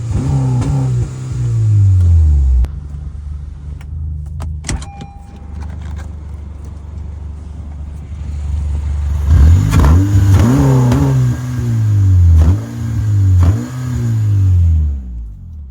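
Honda R18 1.8-litre four-cylinder engine with a muffler delete being revved in neutral: the revs fall back to idle early on, hold near idle for several seconds, then a run of quick blips rises and falls about once a second from about nine seconds in.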